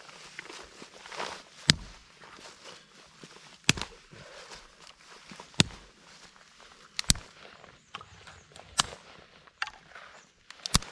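A series of sharp cracks or knocks, about one every one to two seconds, some close together in pairs, over soft rustling.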